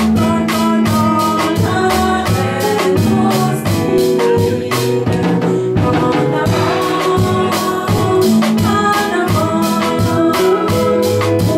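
Gospel song: a woman singing over a band, with drums keeping a steady beat.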